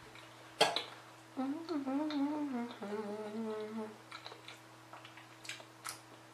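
A sharp clink about half a second in as a metal spoon is set down in the bowl, then a woman hums two long, wavering "mmm"s through closed lips while eating; a couple of small mouth clicks follow near the end.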